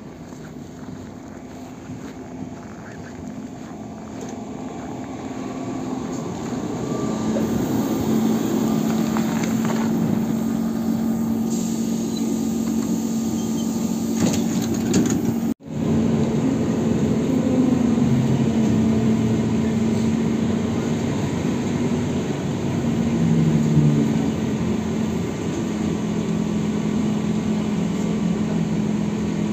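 ZiU-682B trolleybus drawing up, growing louder over a few seconds and settling into a steady electrical hum. After a sudden break, the same steady hum continues, heard from inside the moving trolleybus's cabin.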